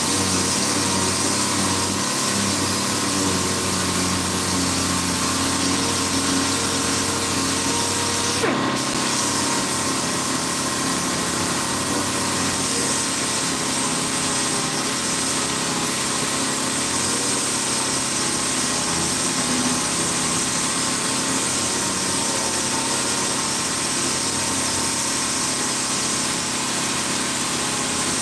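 Power sander running steadily as it sands body filler, a continuous even whirring hiss.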